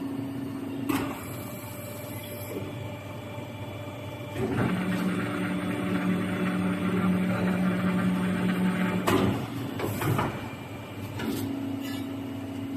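CNC pipe bending machine running: a steady motor hum that turns louder and stronger-toned for about five seconds mid-way, typical of a bending stroke under load. Several sharp clunks come at the start and end of that stretch and once near the start.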